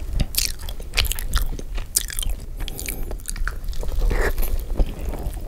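Bites and chewing of thick-crust cheese pizza, a run of irregular crisp clicks and crunches.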